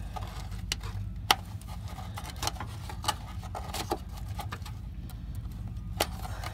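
Scattered short clicks and taps of a screwdriver prying at a rubber plug in the bottom of a pickup truck's rocker panel, the sharpest a little over a second in and again near the end.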